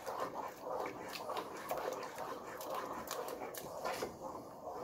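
A utensil stirring thin crêpe batter in a pot, with irregular scraping and light clicks against the pot's sides.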